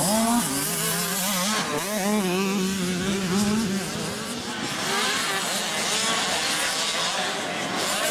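Several 65cc two-stroke motocross bikes racing, their engines revving in quick rises and falls of pitch as the throttles are opened and closed.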